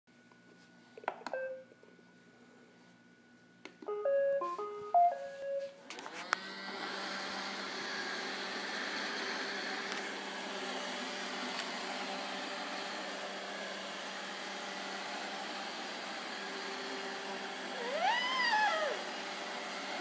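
iRobot Roomba 770 robot vacuum started from its Clean button: a single beep, then a short start-up tune of several notes, after which its vacuum motor and brushes start running steadily. Near the end a brief pitched call that rises and falls sounds over the running.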